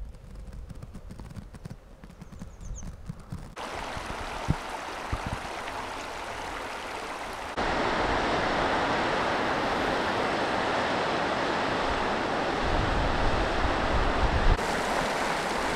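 A small mountain stream cascading over boulders: a steady rush of water that comes in abruptly about halfway through, after a quieter stretch of wind buffeting the microphone.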